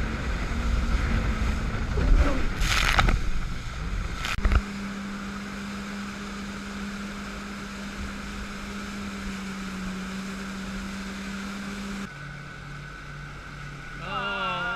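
Boat engine running with a steady drone, with wind buffeting the microphone and water noise for the first few seconds. The sound drops abruptly about four seconds in and shifts again near the end, as the recording cuts.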